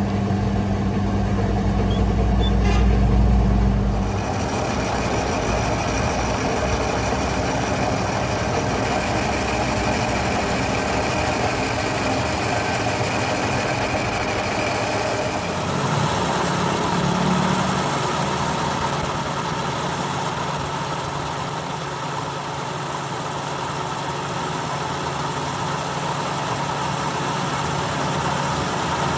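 Workshop machinery running steadily, its sound shifting abruptly about 4 seconds in and again near the middle.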